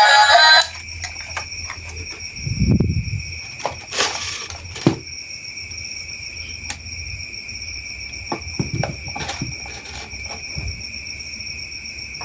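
Scattered clicks and soft knocks from toy train pieces being handled, over a steady high-pitched whine.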